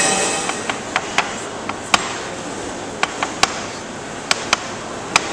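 Scattered sharp taps and clinks of kitchen utensils, about a dozen at uneven intervals, over steady kitchen room noise.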